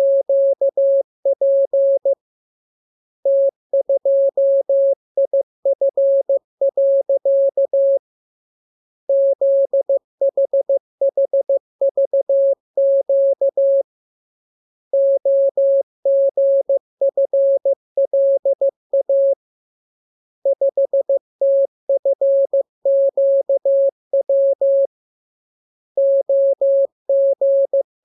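Morse code practice signal: a single pure tone keyed on and off in dots and dashes, sent in runs of characters of about five seconds each, with pauses of about a second between them.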